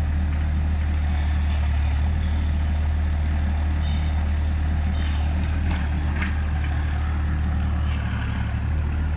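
Hyundai mini excavator's diesel engine running steadily as the machine crawls forward, with a few light knocks about six seconds in.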